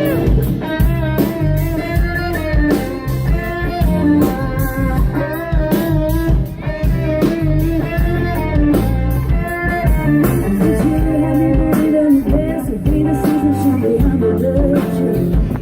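Live country band playing a song's instrumental intro: guitar over a drum kit, with a steady beat.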